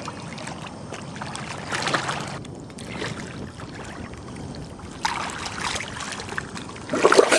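Lake water splashing and sloshing as a snorkeler moves and feels around in it, with stronger splashes about five seconds in and the loudest splashing near the end.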